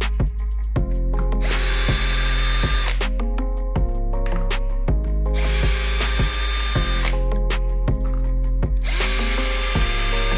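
A cordless drill with a screwdriver bit runs in three short bursts, each spinning up with a rising whine and then holding steady, as it backs out the screws of the recoil starter cover on a two-stroke brush cutter engine. Background music with a steady beat plays underneath.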